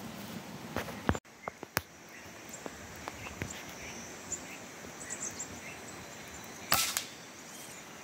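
A single air rifle shot, one sharp crack about seven seconds in. Before it come a few light clicks and faint short bird chirps.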